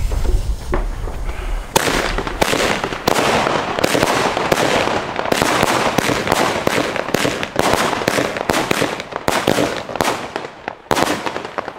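Consumer firework battery (the 'Super Tolle 5') firing. A hiss of the burning fuse for about the first two seconds, then a rapid string of shots launching and bursting, about two a second with crackle between them, which stops shortly before the end.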